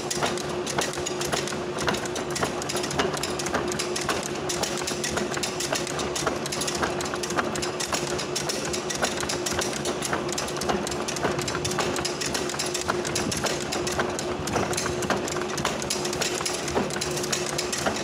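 Crimped wire mesh machine running, pressing waves into a steel rod between its crimping rollers. It gives a steady hum under a continuous rattle of sharp metal clicks.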